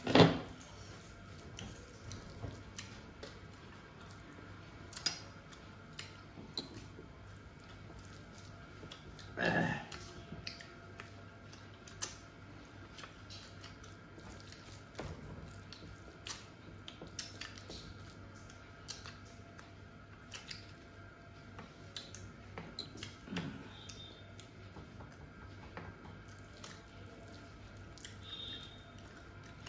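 A person eating: many small clicks and soft squishes of chewing and handling food, with a louder sound right at the start and another about nine seconds in, over a steady faint hum.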